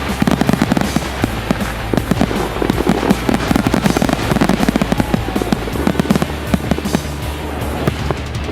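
Fireworks crackling and popping in rapid succession, over background music with a steady low bass that changes note about six seconds in.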